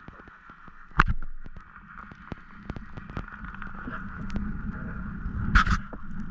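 Underwater ambience picked up by a camera on a speargun: a steady hiss and low rumble with a constant crackle of small clicks, a sharp knock about a second in and a louder, longer burst near the end.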